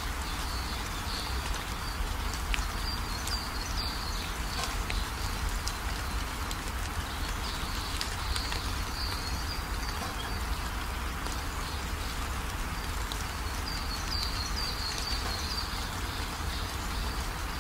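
Steady background hiss with a low hum, broken by faint high chirps now and then. Light clicks come from fingers picking food off a steel plate.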